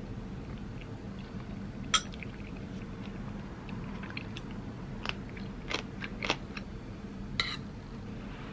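Eating from a ceramic bowl: a metal spoon and chopsticks clink sharply against the bowl about five times, the sharpest about two seconds in, with soft chewing between. A steady low hum runs underneath.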